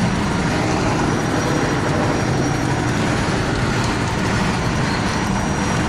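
Off-road vehicle's engine running steadily under load as it drives through a forest stream crossing.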